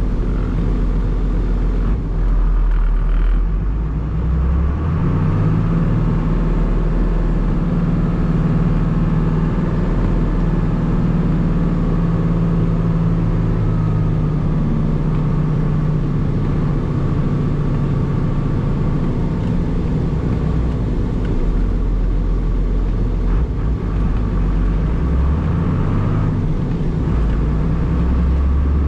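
1994 Dodge Cummins pickup's 5.9-litre inline-six turbo diesel, heard from inside the cab as the truck drives. The engine revs up a few seconds in, settles back around the middle, and revs up again near the end.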